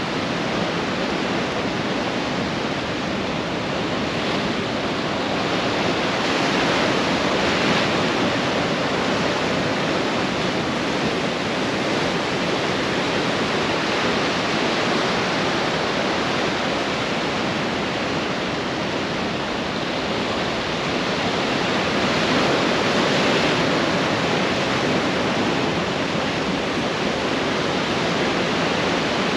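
Ocean surf breaking and washing up the shore: a continuous rush of water that swells a little about a quarter of the way in and again near the end.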